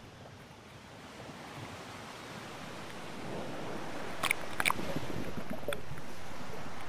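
Seawater sloshing and bubbling against a camera in a waterproof housing as it rides the surface and goes under, the water noise growing louder, with two sharp clicks about two-thirds of the way through.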